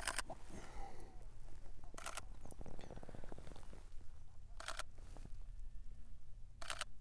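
Single-lens reflex camera shutter firing four times, about two seconds apart, over a faint low rumble.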